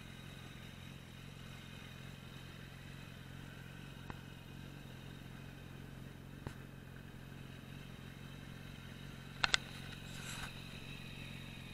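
Yamaha FZS1000 Fazer's inline-four engine idling steadily, with two sharp clicks about nine and a half seconds in.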